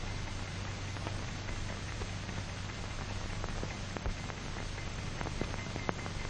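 Old film soundtrack noise: a steady hiss and low hum with scattered crackles and pops.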